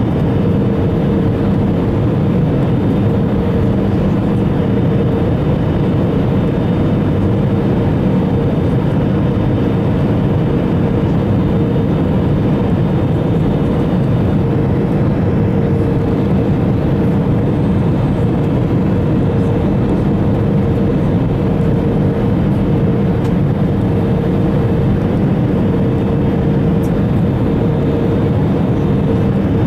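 Cabin noise inside an Airbus A320 on descent for landing, heard from a seat over the wing: a steady drone of the engines and rushing air, with a steady low hum running through it.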